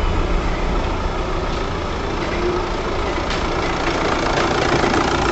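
Volkswagen Passat engine idling steadily just after starting, having been brought back from a no-start fault.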